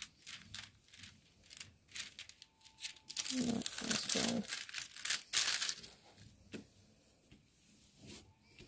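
Plastic cover film on a diamond-painting canvas crinkling and peeling as it is handled, in irregular crackly rustles that are loudest about halfway through.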